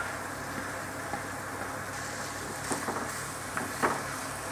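Sliced onions, garlic and curry leaves sizzling steadily in hot coconut oil in a pan, stirred with a wooden spatula. A few light knocks of the spatula come in the second half.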